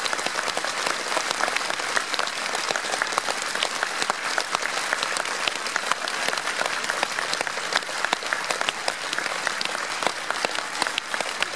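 Large audience applauding steadily, a dense mass of hand claps filling a big hall.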